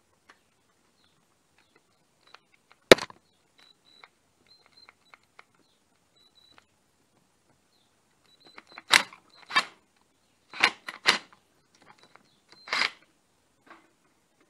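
Sharp metallic clicks and clanks of a 10 mm socket on an extension, worked on bolts on a motorcycle engine's top end. One sharp click about three seconds in is the loudest. A few faint ticks follow, then a cluster of five louder clanks from about nine seconds in.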